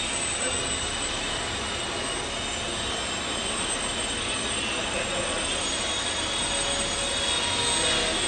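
Electric motor and propeller of an XTAZE indoor 3D Depron model plane whining steadily in flight, growing a little louder near the end.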